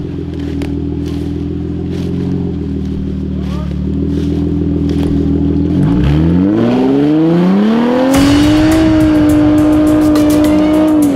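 Off-road 4x4's engine running at steady low revs, then revving up over about two seconds about six seconds in and held at high revs, with a rough rushing noise under it once the revs are up.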